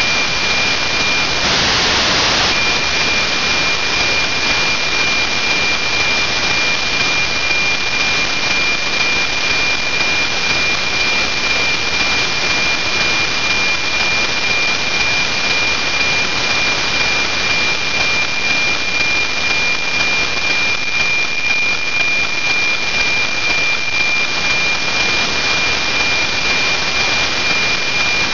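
FM radio receiver static: a steady loud hiss from a software-defined radio demodulating 137 MHz with no satellite signal yet received, plus a steady high tone that drops out briefly about two seconds in.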